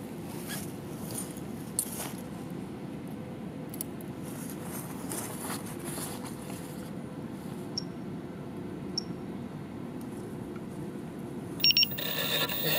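Quiet, steady outdoor background noise with a few faint clicks. Near the end a couple of sharp clicks and a rising hum as the quadcopter's motors start to spin up.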